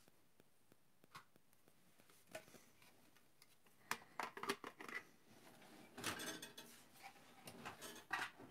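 Faint scattered clicks and rustling of small plastic and diecast toy cars and their clear plastic cases being handled, busiest from about four seconds in.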